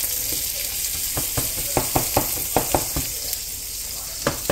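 Chopped onion and scallion sizzling in hot oil in a nonstick frying pan, a steady high hiss. Over it, about eight quick knocks in the middle and another near the end, the plastic cutting board tapped against the pan to shake off the last pieces.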